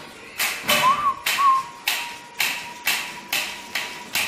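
Compressed air from an air blow gun in short repeated blasts, about two a second, blowing dust off a primed motorcycle part to get it ready for paint. A thin steady whistle sounds under the blasts for most of the time.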